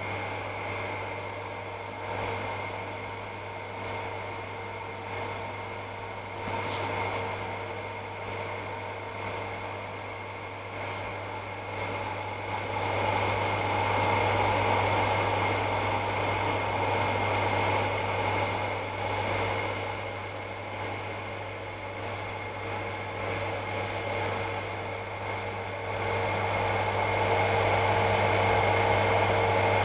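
Steady hum of powered-up bench test instruments: cooling fans running with a low mains hum and a couple of thin, steady whines. The sound swells a little partway through and again near the end.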